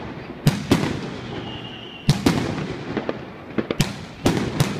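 Fireworks and firecrackers going off: a string of sharp bangs, several in quick pairs, each trailing off in an echo, with a brief faint high whistle just before the second pair.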